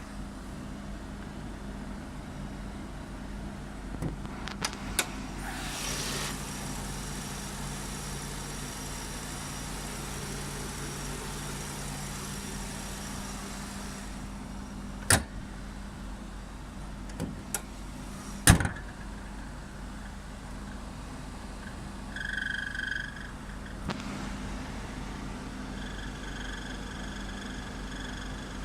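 Mazda RX-7 FD3S running steadily, with several sharp clicks and knocks, two of them loud, midway. Near the end a high squeal from the bonnet striker, the hood latch catch rubbing dry, comes in briefly and then holds steadily. It is an abnormal noise that greasing the catch cures.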